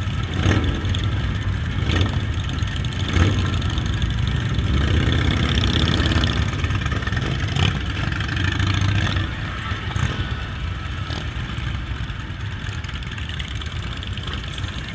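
Motorcycle engines running, louder through the middle and easing off about nine seconds in.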